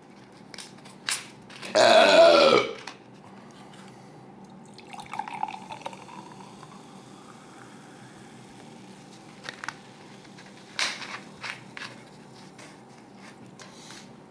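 A dark fizzy drink poured from a bottle into a tall glass, the pouring note rising in pitch as the glass fills, then a faint fizz and a few small clicks. A short, loud sound about two seconds in, before the pour, is the loudest thing.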